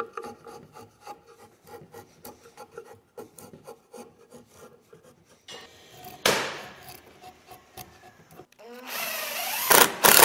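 A hand edge tool shaving a wooden board clamped in a bench vise: a quick run of light rasping scrapes. About six seconds in comes a sudden louder noise. Near the end a Makita cordless impact driver spins up with a loud rising whine, driving a screw into the framing.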